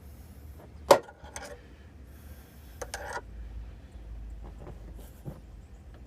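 One sharp knock about a second in, then a few lighter clicks and a short rustle: hand-handling of a car door hinge and tools.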